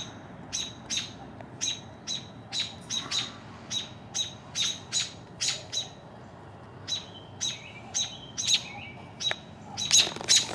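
American robin giving short, sharp alarm calls, about two a second, with a short break around six seconds in and coming faster near the end: a parent robin alarmed by an intruder close to its nest of young.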